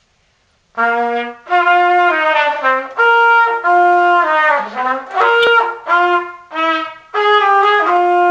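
Trumpet playing a slow melody of held notes, starting about a second in, with a single sharp click about two-thirds of the way through.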